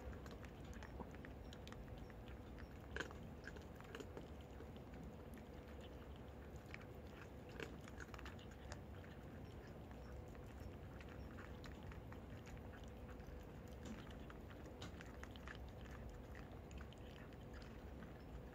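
A cat crunching dry kibble: a faint, irregular run of small crisp crunches and clicks as it chews.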